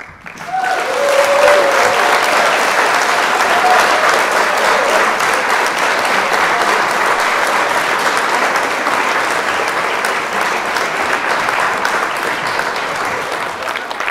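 Audience applauding: dense clapping that builds within the first second, holds steady and tapers off near the end, with a voice or two briefly heard over it in the first few seconds.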